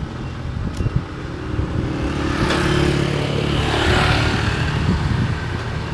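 Heavy engine running, getting louder and working harder from about two seconds in, then easing off near the end.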